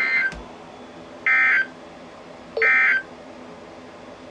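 Emergency Alert System end-of-message tones: three short bursts of SAME digital data, each well under half a second, about 1.3 seconds apart, marking the end of the alert broadcast.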